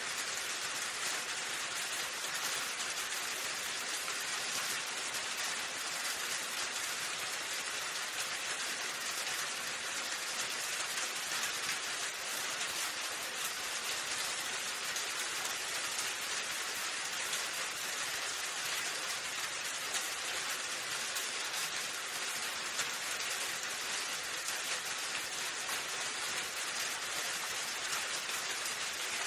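Steady rain falling, an even hiss with a fine patter of drops striking a surface.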